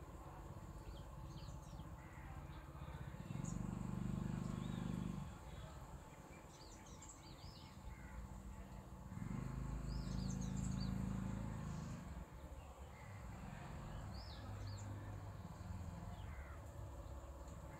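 Birds chirping on and off, while two motor vehicles pass along the road, the first about three seconds in and the second, a little longer, about nine seconds in; the passing engines are the loudest sounds.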